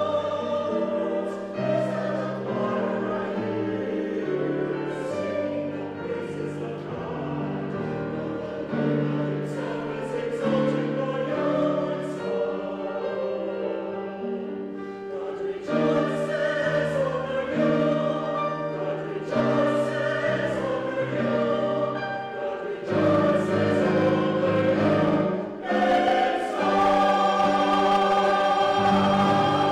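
Mixed church choir singing an anthem with piano accompaniment. It builds louder in the last few seconds and ends on a long held chord.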